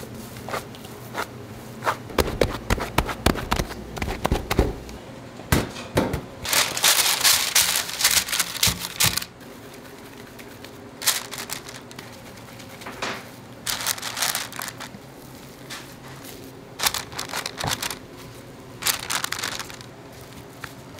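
Kitchen handling sounds: a quick run of knocks and clatter, then repeated bursts of crinkling, as of paper or packaging being handled.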